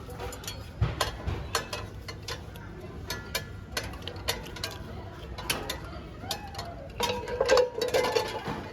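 Kitchen utensils or dishes being handled: irregular clicks, clinks and knocks, some with a brief ring, busiest near the end.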